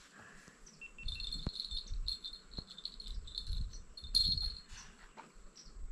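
Insects chirring in a high, broken trill, loudest about four seconds in, over a low rumble.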